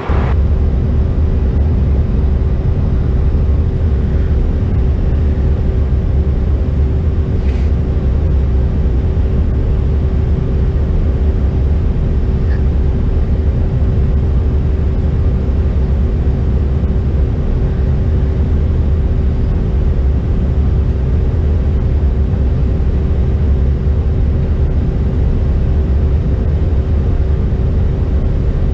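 Cabin noise of a Mitsubishi (Bombardier) CRJ-700 regional jet on approach, heard at the window. It is a loud, steady, deep rumble of airflow and its General Electric CF34 turbofans, with a steady hum running through it.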